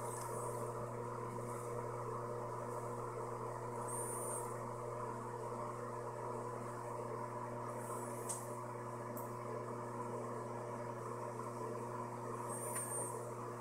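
Steady low mechanical hum with several constant tones, as from a motor or fan running, with a faint high-pitched chirp about every four seconds.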